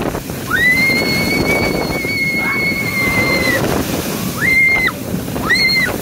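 Young girl screaming on a moving roller coaster: one long high scream held about three seconds, then two short screams near the end, over loud wind rushing across the microphone.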